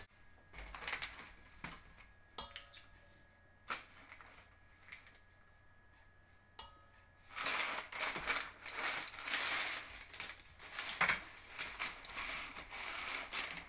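A metal spoon and cookie scoop working stiff cookie dough. First come a few scattered clicks and scrapes, then from about seven seconds in a dense run of scraping as dough is packed into the scoop.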